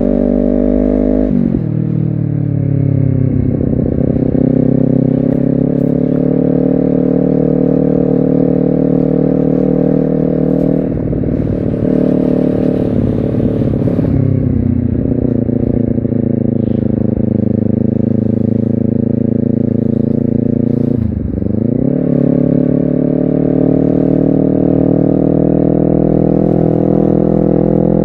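Honda CBR250RR engine pulling under load, its pitch climbing slowly through each gear and dropping sharply at gear changes about a second in and again around 21 s, with a brief dip near 11 s.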